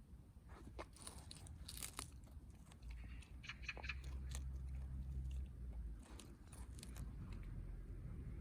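A dog tearing up and chewing grass: irregular crunching and tearing sounds, with a low rumble underneath from about three seconds in.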